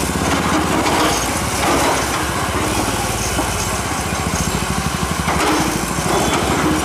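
Hydraulic excavator's diesel engine running steadily with a fast even beat as its bucket breaks into a masonry wall, with rubble crumbling under it.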